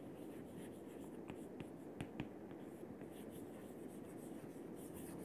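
Chalk writing on a chalkboard: faint scratching, with a few sharp taps as the chalk strikes the board around one to two seconds in.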